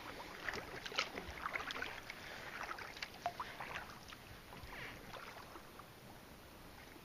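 Kayak paddle strokes in calm water: the blades dip and splash, and water drips and trickles off them. The strokes are busiest in the first few seconds and grow sparser and quieter toward the end.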